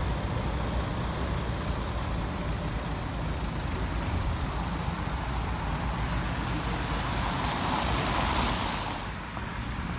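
City street traffic on a wet road: a steady low engine rumble from a bus and tyres hissing on wet pavement, with one vehicle passing close near the end, its hiss swelling and then fading.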